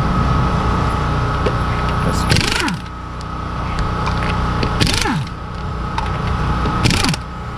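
Impact wrench hammering wheel lug nuts loose, one nut after another. Three times the hammering ends in a short sharp burst and a falling whine as the tool stops.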